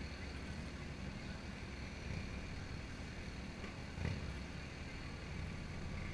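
Steady low outdoor rumble with no clear single source, and a single thump about four seconds in.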